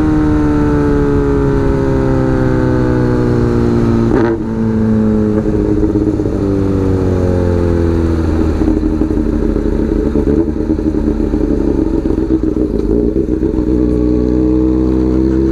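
Honda Hornet CB600F inline-four with a megaphone exhaust, engine note falling as the bike slows, with a short break about four seconds in, then running steadily at low revs.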